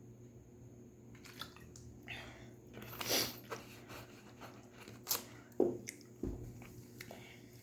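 A person biting and chewing stir-fried vegetables: irregular crunches and mouth clicks, loudest about three seconds in and again after five seconds, with a low thump a little later.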